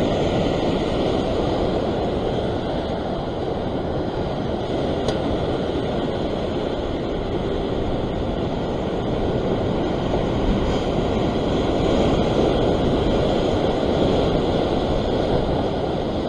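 Ocean surf breaking and washing in a steady rush, with wind rumbling on the microphone.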